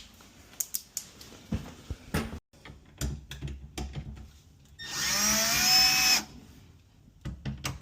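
Cordless drill-driver run in one burst of about a second, its motor whine rising in pitch as it drives in a door handle screw. Before it, a few light clicks and knocks of handling the tool and parts.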